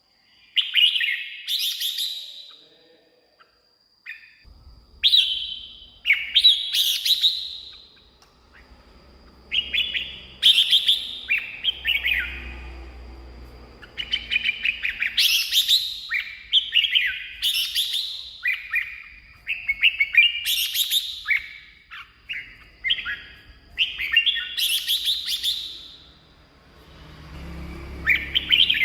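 Red-whiskered bulbul singing: a run of short, rich, whistled phrases, about seven of them, each a second or two long with short pauses between. A faint thin steady high tone runs under the song, and a low hum comes in about four seconds in.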